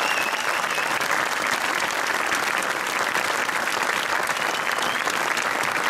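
Large crowd of spectators applauding steadily, a dense patter of many hands clapping.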